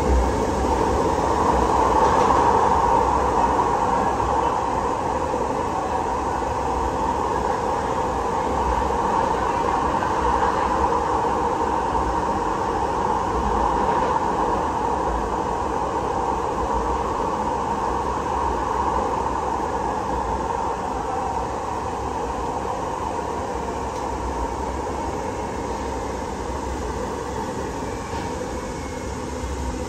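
Cabin ride noise of a Siemens LRV4 light-rail car running in a subway tunnel: a steady rumble with wheel-on-rail noise. It grows gradually quieter through the second half as the car slows for a station, with a faint falling whine near the end.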